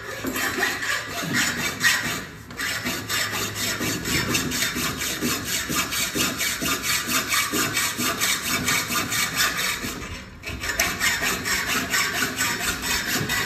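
Hand hacksaw cutting through a hollow metal sliding-door track channel, rasping in quick, even back-and-forth strokes. The sawing stops briefly twice.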